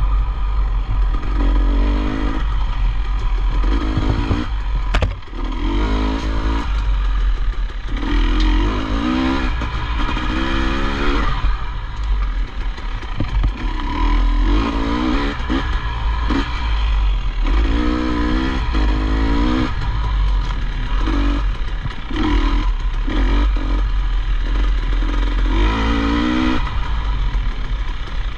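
Off-road motorcycle engine ridden hard, revving up and dropping back over and over every second or two as the rider works the throttle and gears. A constant heavy low rumble runs under it, with a sharp knock about five seconds in.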